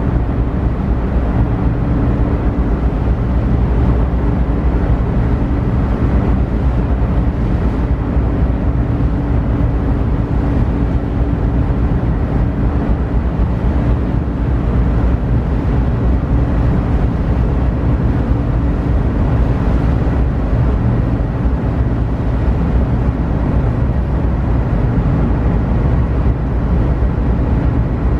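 Passenger ferry's engines running, a steady low drone with an even rushing noise over it that does not change.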